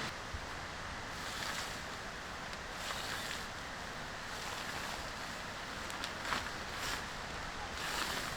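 Sea waves washing on the shore, with wind, a steady rushing that swells and eases every second or two. A few short sharp clicks and taps come in the second half.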